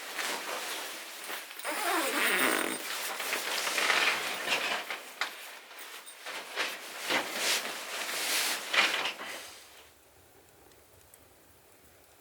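Rustling and scraping of gear being handled, in uneven strokes with a few zipper-like sweeps; it stops about ten seconds in.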